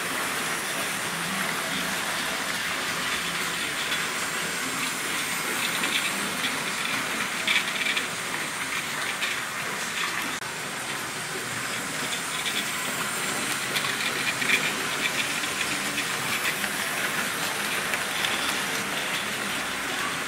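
Several model trains running at once around the tracks of a layout: a steady whirr of small electric motors and wheels rolling on rail, with short clicks now and then.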